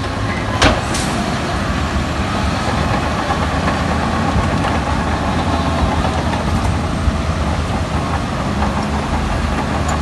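Heavy earthmoving machine's diesel engine running steadily, with one sharp knock about half a second in.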